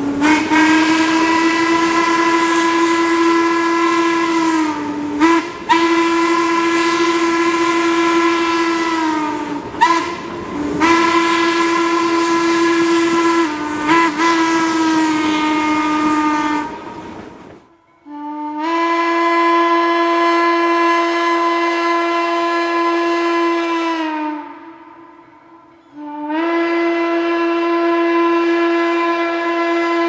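Steam locomotive whistle blowing four long blasts with short breaks, heard from aboard the moving train over the clatter of its wheels. After a break, two more long, steady blasts on a steam whistle come in clean, without the rail noise.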